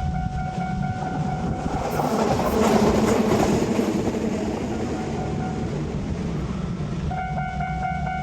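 Japanese railway level-crossing warning bell ringing in a steady rhythm while a train passes. The passing train's noise swells loudest about three seconds in and covers the bell, which rings out clearly again near the end.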